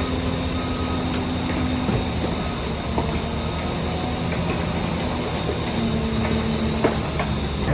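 Heavy diesel earthmoving machinery running steadily, with a strong hiss over the engine and a few light clanks.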